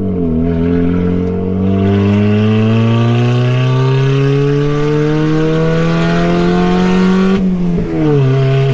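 2016 Chevy Cruze's four-cylinder engine and resonator-delete exhaust, which dumps out under the car with the catalytic converter still in place, heard from inside the cabin while accelerating. Its pitch climbs slowly in one long pull, then falls sharply near the end.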